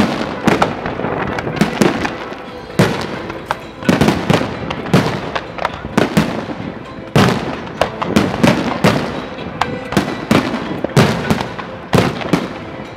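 Fireworks display: aerial shells and rockets going off in a dense run of sharp bangs, a few every second.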